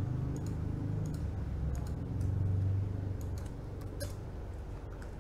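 Computer mouse and keyboard clicks: a handful of separate clicks, the sharpest about four seconds in, over a low steady hum.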